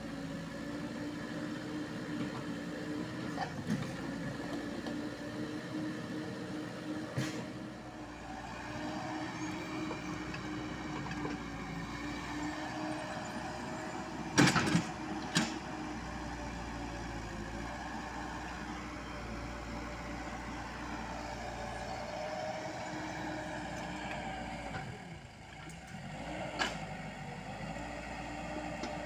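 Komatsu PC78US mini excavator's diesel engine running steadily while it digs, its pitch sagging briefly a few times under load. About halfway through come two sharp knocks close together, the loudest sounds here, and another knock comes near the end.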